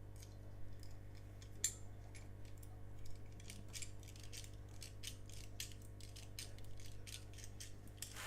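Steel pick tools clicking and scraping inside an Old English lever padlock as it is picked with an overlifter: many light, irregular ticks over a steady low hum.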